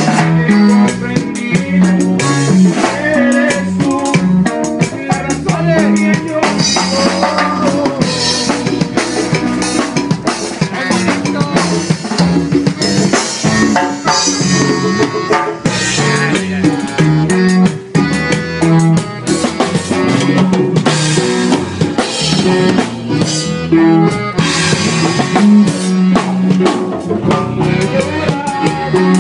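Live band playing a song, with the drum kit up close and loudest: a steady beat of snare, bass drum and cymbals over accordion.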